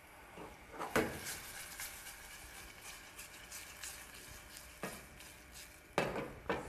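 A spoon stirring chopped fresh tomatoes and basil in a small stainless steel saucepan over the heat, with a faint sizzle and small scraping ticks. The spoon knocks against the pan about a second in, and clinks twice more near the end.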